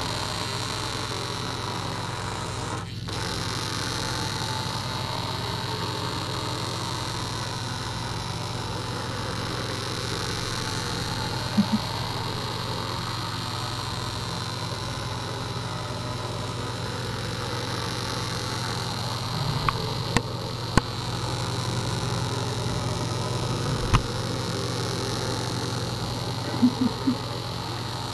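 Small battery-powered vibrating bug toy buzzing steadily as it crawls across a mat, with a few sharp taps now and then.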